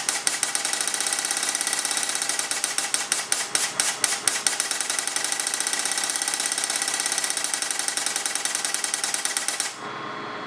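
24 V solenoid valve of a .177 BB air cannon cycling on full auto, firing short blasts of 125 psi shop air in a rapid, even train of sharp pops. The firing rate shifts as the rate control is turned. The firing stops about nine and a half seconds in, leaving a faint steady hum.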